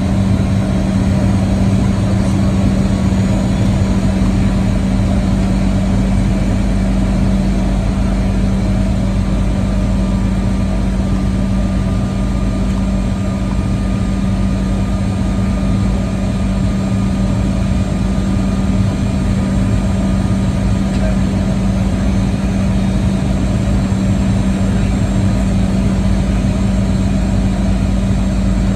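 Cabin noise inside a Boeing 737-800 in flight, heard from a seat over the wing: the CFM56-7B engines' steady drone with a strong low hum, under an even rush of airflow.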